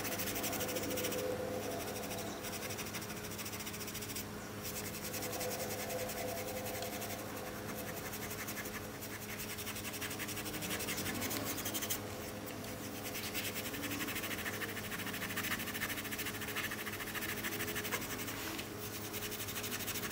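Superfine steel wool scrubbing back and forth over a painted rifle stock, scratching off loose paint, with a few brief pauses between strokes.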